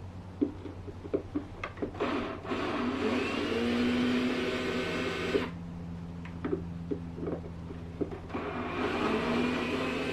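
Electric drill-driver running in two spells of a few seconds each, backing out the screws of a lock and latch, with small clicks and knocks of handling between.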